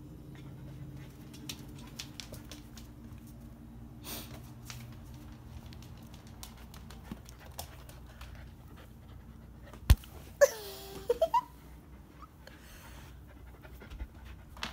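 Bernese Mountain Dog puppy panting close up, with scattered light clicks. About ten seconds in there is a sharp knock, then a short whine that dips and rises in pitch.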